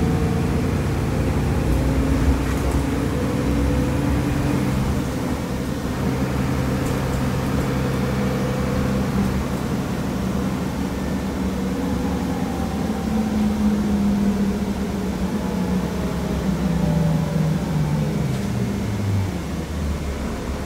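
Diesel engine and drivetrain of a 2004 city bus heard from inside the passenger cabin while under way, a steady low hum with road noise; the engine note falls over the last few seconds as the bus slows.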